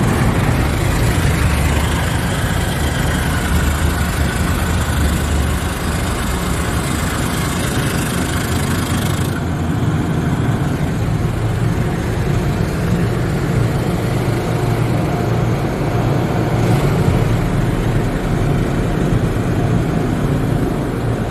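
AVW tunnel car wash heard from inside a car on the conveyor: steady spraying on the car over a low rumble of wash machinery. The high hiss of the spray drops away about nine seconds in.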